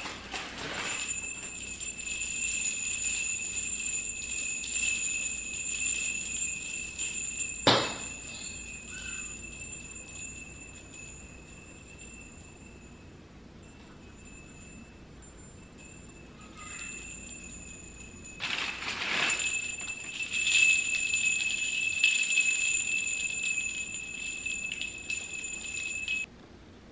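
A garland of small gold metal bells jingling and tinkling at one pitch as it is handled and hung, dying down in the middle and swelling again later. A sharp click comes about eight seconds in, and the ringing stops suddenly near the end.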